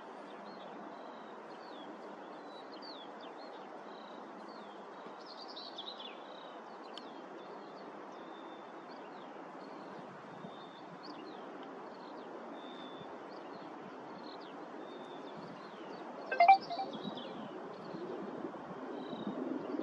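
Small birds chirping over a steady distant rumble from a Class 66 diesel locomotive hauling coaches as it approaches, the rumble growing louder over the last couple of seconds. A short sharp sound stands out a few seconds before the end.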